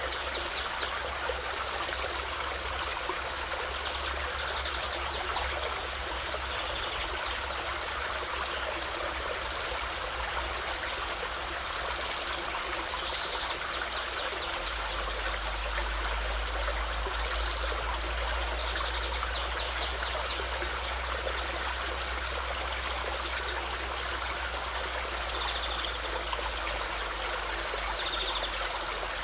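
A river flowing steadily.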